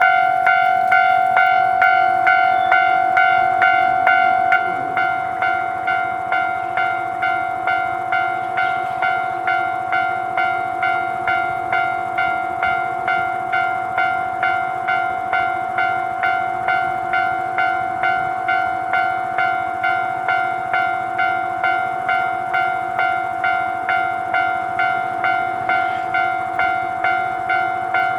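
Japanese railway level-crossing warning bell ringing in an even, steady rhythm of about two strokes a second, signalling that a train is approaching. The ringing drops slightly in level about four and a half seconds in and then carries on unchanged.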